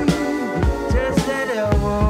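Live funk organ trio playing an instrumental passage: electric guitar and keyboard over a drum kit keeping a steady beat.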